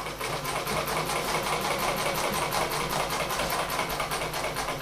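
Olivia sewing machine running on its newly fitted electric motor, its mechanism clattering in a fast, even rhythm. It is a test run showing that the once-seized machine now works.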